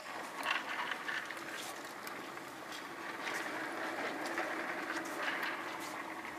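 Steady background noise of a large exhibition hall, with faint scattered clicks and taps.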